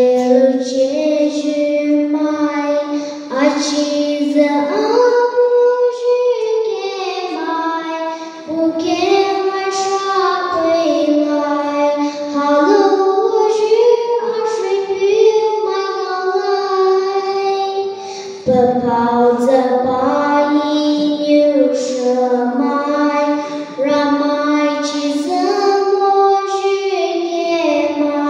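A young girl singing solo into a handheld microphone, a slow melody of long held notes stepping up and down, with short pauses for breath.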